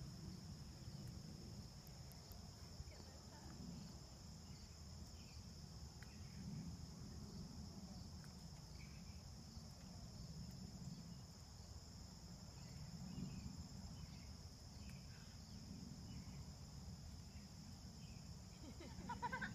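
Steady high-pitched chorus of insects, likely crickets, over a low rumble. A brief rising call comes near the end.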